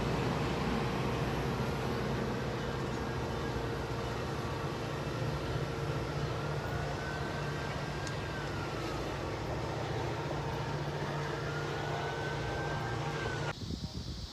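Metra commuter train's stainless-steel bilevel cars passing at speed close by: a steady rumble and rush of wheels on rail, with a faint whine that rises and falls a few times. Near the end it cuts off abruptly to wind on the microphone.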